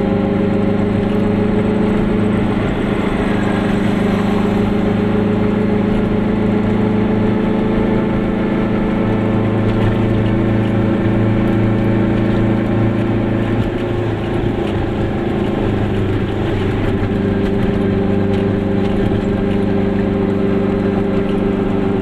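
Goggomobil's small two-stroke twin-cylinder engine running steadily while driving, heard from inside the car. Its note wavers and shifts for a few seconds about two-thirds of the way through, then settles again.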